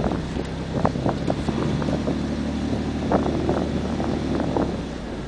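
A 4x4 truck's engine running steadily as it drives slowly over a snowy trail, with a few sharp thumps from bumps and wind noise on the microphone.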